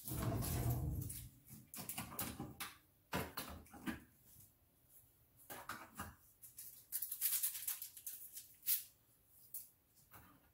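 Kitchen handling noises as a Keurig single-serve coffee maker is loaded and a ceramic mug is set under it. First a burst of rustling, then scattered knocks, clicks and short scrapes.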